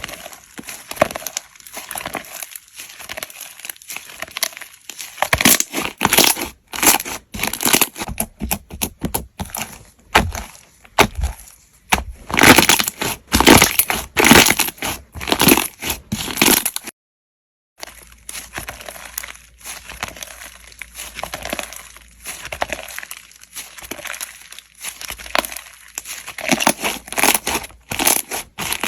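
Slime being handled and squished by hand, giving dense runs of crackling clicks and pops in bunches, with a brief moment of silence a little past halfway.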